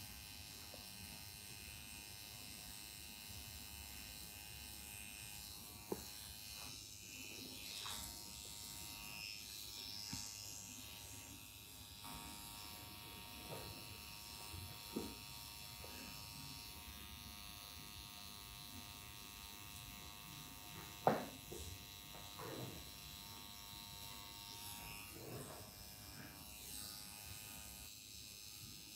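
Permanent makeup tattoo machine running with a steady, faint, high buzz as its needle works pigment into the lower lash line. A few short sharp sounds break in, the loudest about two-thirds of the way through.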